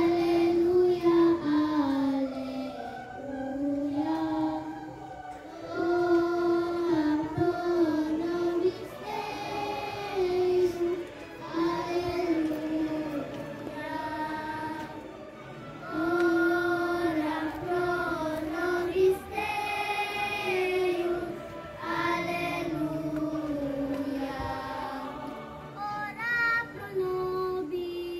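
Children's choir singing a hymn in unison, in sustained phrases a few seconds long with brief breaks between them.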